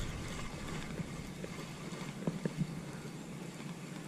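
Spinning reel being cranked, a faint steady whirr with a few light clicks, as a hooked yellow bass is reeled in.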